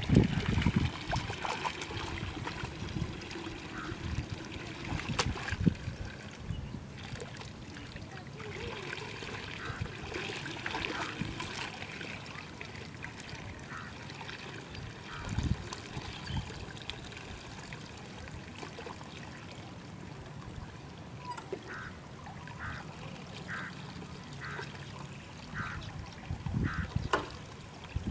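Hands digging and sloshing in wet mud and shallow water, with squelches and a few louder splashes. In the last several seconds a bird calls in the background, short repeated notes about one a second.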